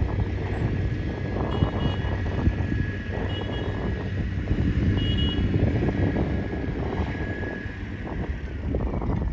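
A low, steady rumble of vehicle engines with wind buffeting the microphone, a faint steady whine above it, and three short high chirps about a second and a half apart.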